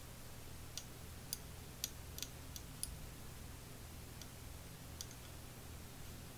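Faint, irregular light ticks, several close together about a second in, then a few scattered ones, as fly-tying thread is wrapped around a hook from a bobbin, over a low steady hum.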